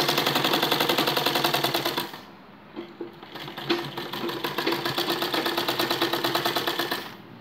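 Domestic sewing machine running a fast, even line of stitches while topstitching a zipper onto cotton fabric. It stops about two seconds in, then starts again a little quieter and runs until shortly before the end.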